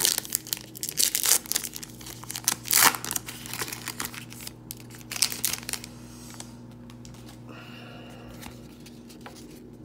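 A trading-card pack's wrapper being torn open and crinkled, a quick run of sharp crackles over the first three seconds, followed by quieter rustling of cards being handled.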